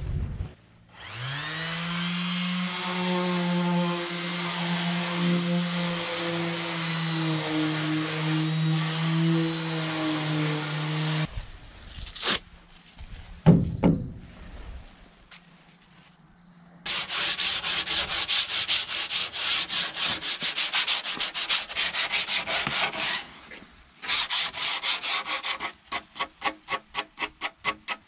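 Electric sander spinning up, running steadily for about ten seconds, then switched off. Later comes hand sanding of fibreglassed plywood with sandpaper: rapid scraping strokes for several seconds, then slower separate strokes at about three a second near the end.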